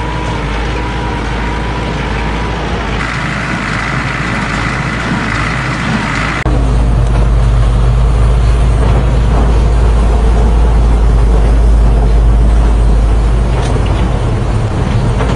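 Tractor engine and a small square hay baler running, with a steady mechanical clatter and a thin whine. About six and a half seconds in it changes suddenly to the louder, steady low drone of a large tracked excavator's diesel engine.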